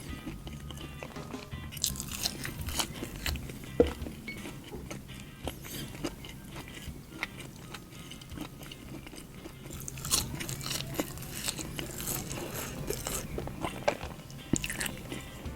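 Close-miked eating: biting and chewing a sambal petai and blue cheese burger, with irregular crunches and mouth clicks, a sharper crunch about four seconds in and another cluster of crunches in the later part. Quiet background music runs underneath.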